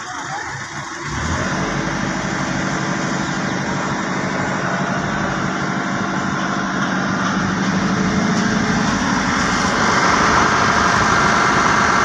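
Massey Ferguson 260 tractor's three-cylinder diesel engine running steadily. It picks up about a second in and gets louder again near the end.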